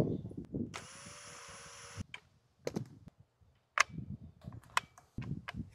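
Sharp plastic clicks and knocks from handling the weather station's sensor array housing, some five separate clicks. About a second in, a short steady whir lasts a little over a second.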